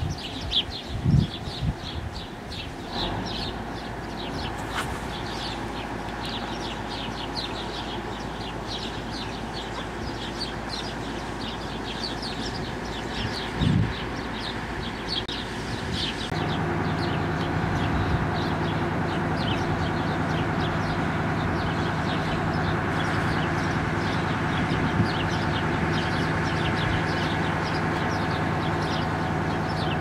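Small birds chirping over and over in the background, with a few low thumps early on and near the middle. About halfway through, a steady mechanical hum sets in and carries on.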